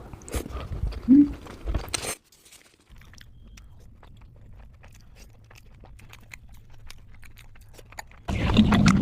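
Close-miked chewing and biting of momos in spicy gravy: wet mouth clicks and crunches, louder for the first two seconds, then fainter with many small clicks. A much louder rush of noise starts just before the end.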